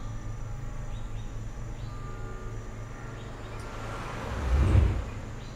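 Low, steady rumble of cars driving on a road, with a whoosh that swells and fades about four and a half seconds in.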